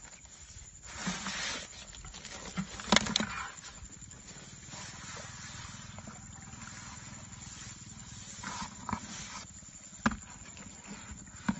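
Handling noises as a muddy fish trap is worked by hand: rustling and scraping, with a few sharp knocks, the loudest about three seconds in.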